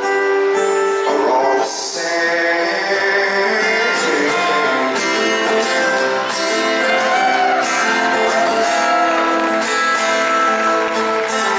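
Live band music: strummed acoustic guitar and other instruments playing steadily with a singing voice, the sound of a large concert hall around it.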